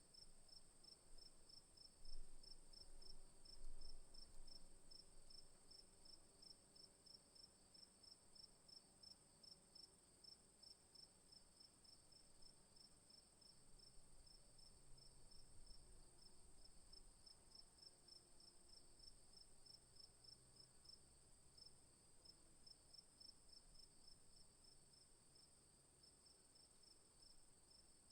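Crickets chirping faintly: a steady high trill under a pulsed chirp that repeats about three or four times a second, with a couple of low rumbles about two and four seconds in.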